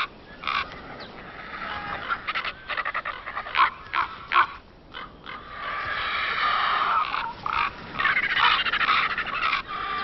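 Ravens and griffon vultures squabbling at a carcass: a run of short, harsh croaking calls, scattered at first and coming thick and fast in the second half.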